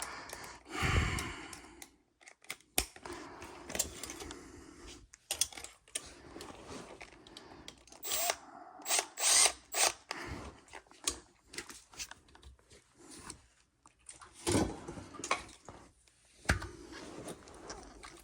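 Tools and metal parts being worked on an air handler's blower assembly: irregular clicks, knocks and short clanks.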